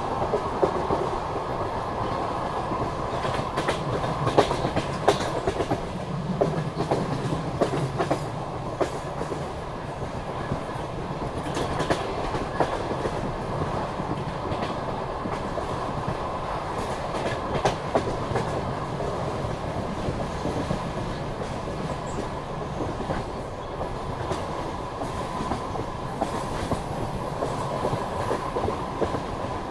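Passenger train carriage running along the track: a steady rumble with wheels clacking over the rail joints at uneven intervals, and a faint steady tone running through it.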